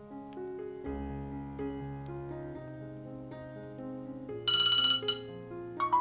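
Soft piano background music with slow sustained notes. About four and a half seconds in, a short, loud electronic ringing tone sounds for under a second, and bright mallet-like notes begin near the end.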